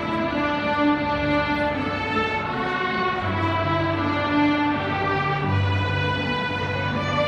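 A youth string orchestra of violins and cellos playing a movement of a Christmas suite: sustained, held notes over a low line that moves to a new note every second or two.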